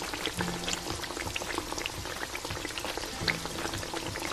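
Miniature pot of chicken and potato curry bubbling and popping as it simmers over a small flame: a steady hiss full of small irregular pops.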